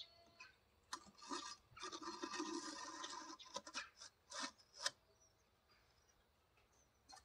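Insulating firebrick scraping and rubbing against the wooden sides of a mitre box as it is pushed down into place, followed by a few light knocks about three and a half to five seconds in.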